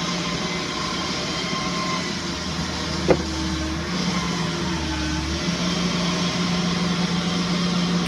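A vehicle engine idling steadily, with a deeper rumble joining in for about three seconds and one short, sharp sound about three seconds in.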